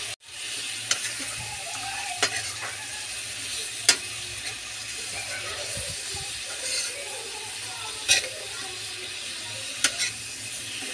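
Shrimp sizzling in sauce in a wok, stirred and turned with a metal spatula that knocks against the pan five times at irregular intervals over a steady frying hiss.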